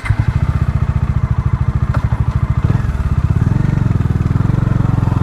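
Bajaj Dominar 400's single-cylinder engine idling with a steady, even pulse.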